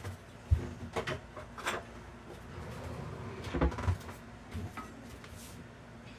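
Kitchen handling sounds: about six knocks and clunks as things are moved and set down, with a sharp low thump about half a second in and another cluster of knocks around three and a half seconds.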